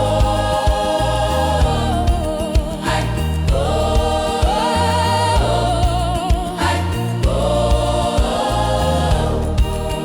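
African gospel praise music: a choir sings long wordless held notes with vibrato in three swelling phrases over a steady bass and drum beat.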